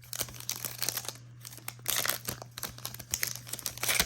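Plastic foil wrapper of a trading-card pack being torn open and crinkled in the hands, in an irregular run of crackles that gets louder about two seconds in and again near the end.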